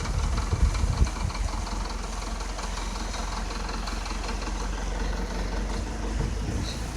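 Mercedes-Benz 240D's four-cylinder diesel engine idling steadily as the car creeps slowly in reverse onto ramp rails, with a few low thumps in the first second.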